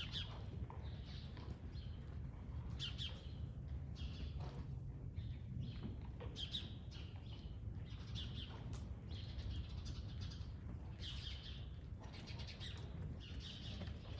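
Small birds chirping over and over, short high chirps coming every second or so, over a steady low rumble.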